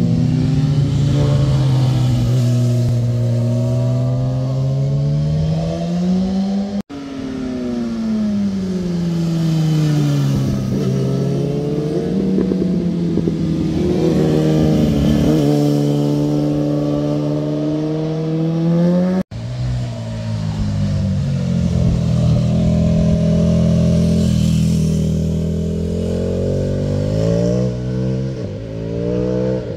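Motorcycle engines passing through a hairpin bend, their pitch falling into the corner and rising again as they accelerate out. There are three passes cut together, with a brief drop-out at each cut.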